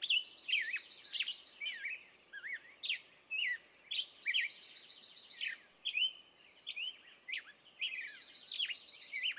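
Small songbirds calling and singing: many short, hooked whistled chirps, several times with a rapid trill of quick repeated notes lasting about a second.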